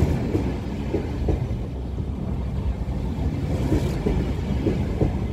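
Double-deck Intercity 2 passenger coaches rolling past close by, a steady low rumble of wheels on the rails.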